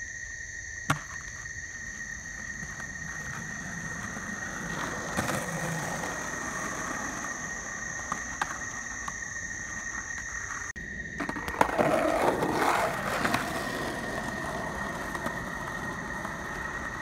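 Skateboard wheels rolling on an asphalt path, with a few sharp clacks of the board and a louder, rougher stretch of rolling about two-thirds of the way through. A steady high-pitched tone at two pitches runs underneath.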